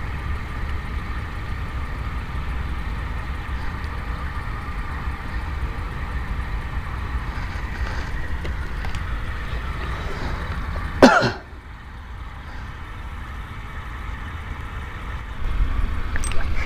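A man clears his throat once, sharply, about eleven seconds in, over a steady low rumble with a faint steady hum. The rumble drops away after the throat-clearing and comes back near the end.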